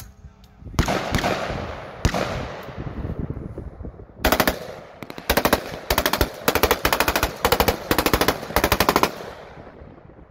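Rifle gunfire from an M4-style carbine: two single loud shots with a long echoing tail, then from about four seconds in a string of short rapid automatic bursts in quick succession, stopping about a second before the end.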